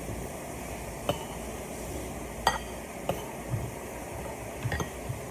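Metal spoon and fork clinking against a ceramic plate while eating: a few light separate clinks, the loudest about halfway through with a short ring.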